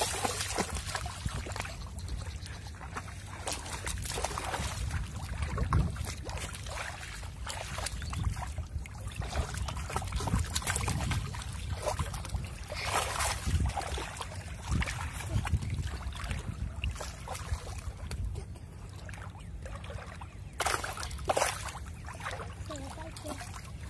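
Shallow water splashing and sloshing as a person wades through it and grabs at fish by hand, in irregular bursts with louder splashes about halfway through and near the end.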